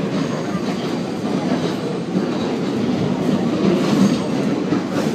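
R32 subway car in motion, heard from inside the car: a steady rumble and clatter of wheels on rail, with a few faint clicks.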